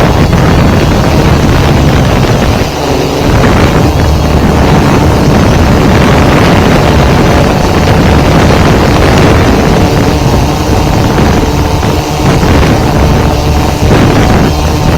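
Multirotor drone on an F550 hexacopter frame in flight, its motors and propellers making a steady, loud hum with several held tones, picked up by the drone's onboard camera. Wind noise buffets the microphone.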